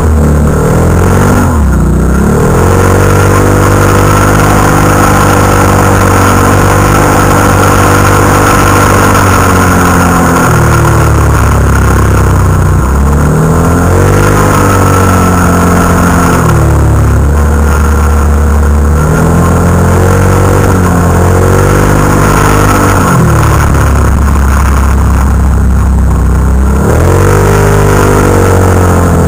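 Can-Am Renegade ATV's V-twin engine running hard under load. The revs hold high for a few seconds, then drop and climb again, over and over as the throttle is eased and reopened.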